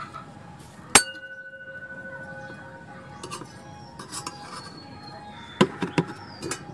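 A metal object struck sharply once about a second in, ringing on briefly with a clear tone, then a few quicker, lighter clinks near the end.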